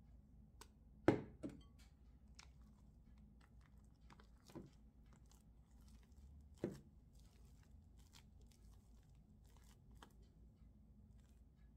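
Silicone spatula folding whipped cream into creamed butter in a glass bowl: faint scraping and small ticks, with a few light knocks against the glass, the loudest about a second in.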